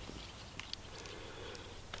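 A few faint, light clicks and crackles of dry twigs being handled and laid on a small smoking campfire.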